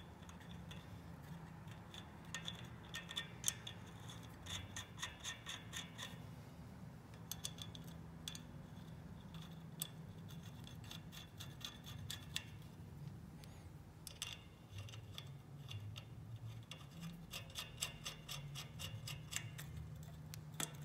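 Light metallic clicking in quick runs, stopping and starting every second or two, as the clutch spring nuts are threaded onto the pressure plate studs of a Harley-Davidson Shovelhead clutch.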